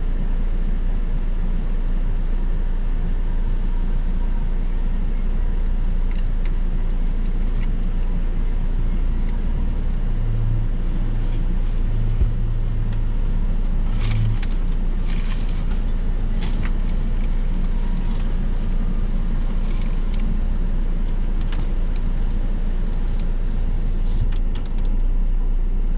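Car engine idling, heard from inside the cabin as a steady low rumble, with a few light clicks about halfway through.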